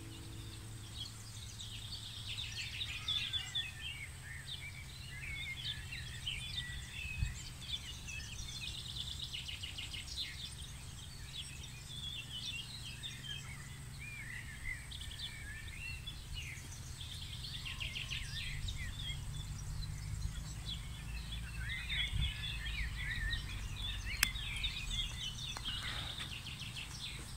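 Wild birds chirping and singing, many short overlapping calls, over a low steady background rumble.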